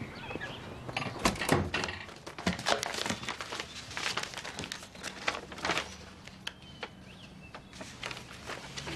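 A run of irregular light knocks and clicks, densest in the first half and thinning out later.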